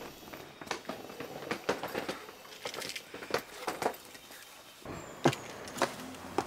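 Scattered light clicks and knocks of footsteps and handling beside a car, with one sharper click about five seconds in.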